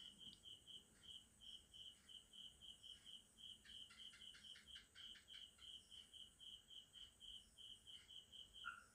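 Faint, even chirping of an insect, about five chirps a second at one high pitch, with a second, lower pulsing call joining near the end.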